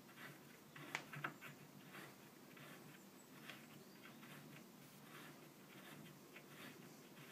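Near silence with faint light scrapes and ticks of hand assembly work on a wooden chair, and two sharper clicks about a second in.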